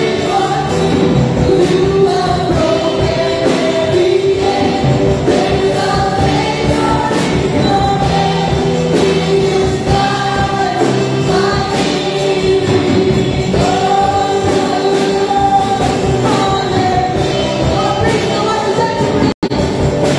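A woman singing a church song through a microphone and PA, backed by a live band of electric guitars, bass guitar and drums. The sound cuts out for an instant near the end.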